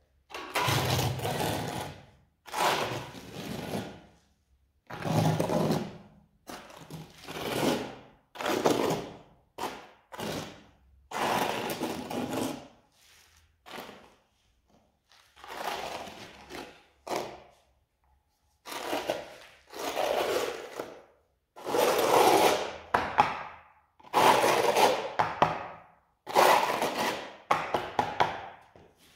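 Notched trowel scraping and combing grey cement tile adhesive over a concrete floor. It makes a long series of strokes, each about a second long, with short gaps between.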